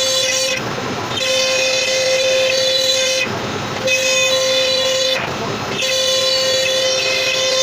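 CNC router spindle running with a steady high whine, broken three times by short spells of rougher noise.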